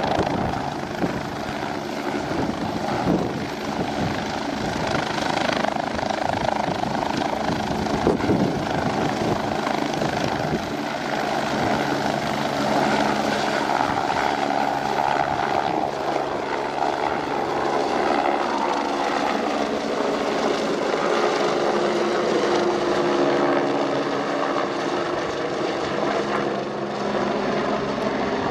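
AgustaWestland AW109 Grand twin-turbine helicopter lifting off and climbing away, its turbines and rotor running at full power in a steady roar. Its tones slide slightly lower in the second half.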